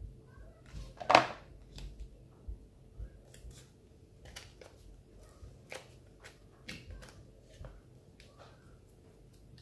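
Hands handling a container wrapped in crinkly foil gift paper, pressing the paper down: scattered light rustles and taps, with one louder knock about a second in.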